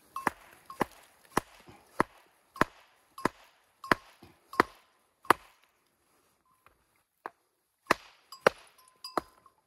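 Geologist's hammer striking rock in a quick series of sharp blows, about one every 0.6 s, pausing for about two seconds midway before five more blows. Some strikes leave a brief ring.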